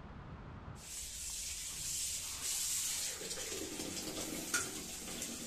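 Water running from a bath tap into a part-filled bathtub, a steady hiss that starts about a second in, with a single short click a little before the end.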